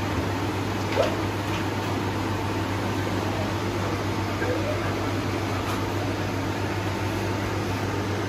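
Steady low electrical hum and fan noise from shop machinery, with a single sharp knock about a second in.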